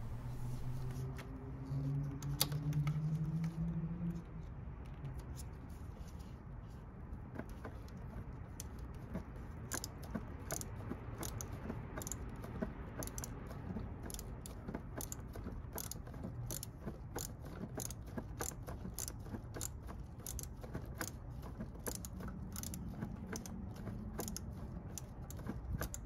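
Angle ratchet Phillips screwdriver clicking as it backs out a screw: a steady series of light clicks, about one and a half a second, from about eight seconds in. A low hum during the first four seconds.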